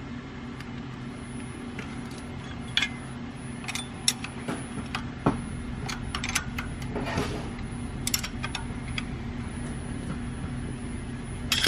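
Scattered light metallic clicks and clinks of hand tools (a flat-blade screwdriver, feeler gauge and wrench) against a Duramax diesel's rocker arms and adjusters while the valve lash is set, over a steady low hum.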